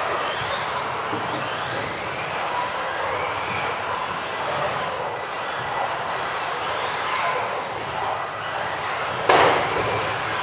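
Several electric RC off-road buggies racing at once, their motors whining up and down in overlapping pitch glides over tyre noise. A sudden loud impact comes about nine seconds in.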